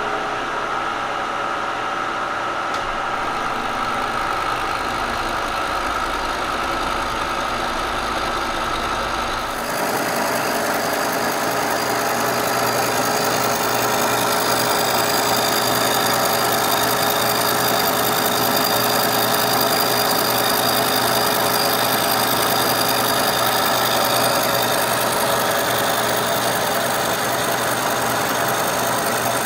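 Kearney & Trecker milling machine running with its carbide-insert face mill cutting across a cast iron casting: a steady machine hum with several steady tones. About ten seconds in the sound changes abruptly to a brighter, slightly louder cutting sound with more hiss.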